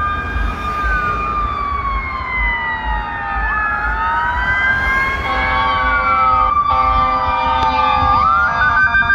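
Sirens of approaching fire apparatus and police cars, several wailing at once with slow rises and falls. About five seconds in a steady horn blast joins them, and near the end one siren switches to a fast, stepped warble.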